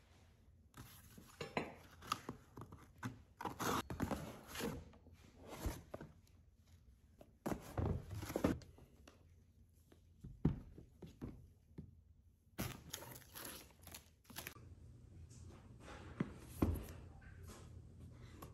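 Hands handling a Google Wifi paperboard retail box on a table: irregular rustling, scraping and sliding of the cardboard, with a few sharper knocks as it is set down or tapped.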